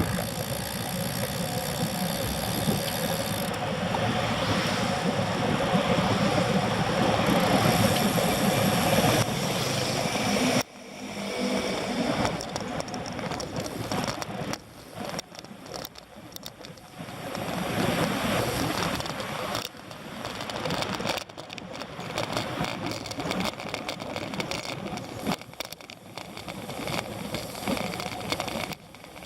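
A vehicle driving along a road, with engine and road noise. It is loud and steady for the first ten seconds or so, then drops suddenly and goes on quieter and more uneven.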